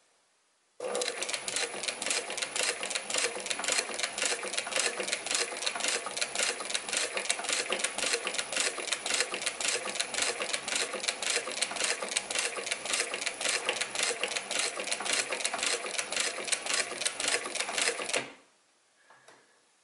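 Adler 267 industrial walking-foot sewing machine stitching steadily, a rapid, even clatter of needle bar, feed and rotary hook. It starts about a second in and stops abruptly near the end.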